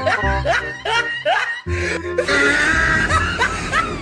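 Background music with a steady bass beat, overlaid with short, high-pitched gliding sound effects that repeat a few times a second; the mix changes about two seconds in.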